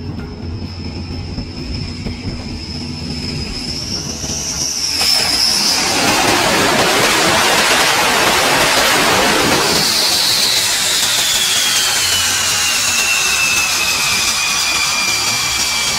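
MiG-29K fighter jet landing on an aircraft carrier at night: a steady high engine whine on approach, then about five seconds in a sudden loud rush of jet engine noise as it touches down and is caught by the arresting wire. From about ten seconds the rush dies away and the engine whine falls steadily in pitch as the engines spool down on deck.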